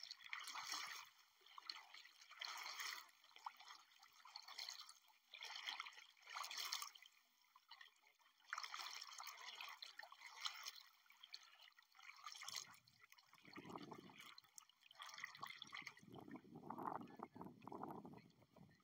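Faint water sounds: splashing or trickling washes that come every second or two, with a lower rumble joining in for the last few seconds.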